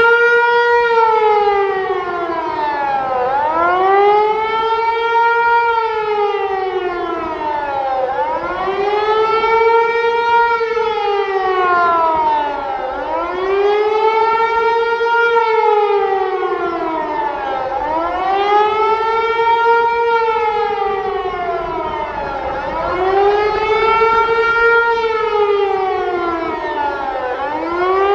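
Hörmann HLS 273 electronic siren sounding the rising and falling warning tone that tells the population of danger, its pitch sweeping up and down about every five seconds.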